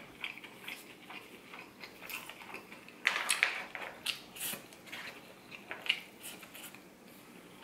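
Metal fork scraping and scooping rice and meat out of an aluminium foil tray, a string of short scrapes and clicks, loudest about three seconds in, with biting and chewing.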